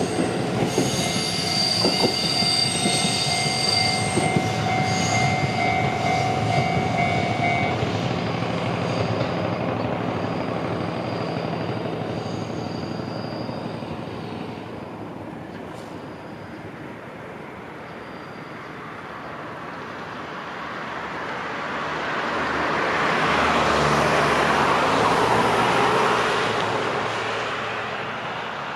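Electric train running on the JR Minobu Line, its wheels squealing as several steady high tones for about the first eight seconds. The running noise then dies down and swells up again near the end before easing off.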